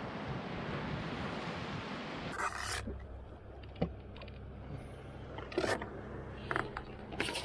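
Wind and water noise, then from about two seconds in a jet ski engine idling steadily, with a few sharp clicks and knocks over it.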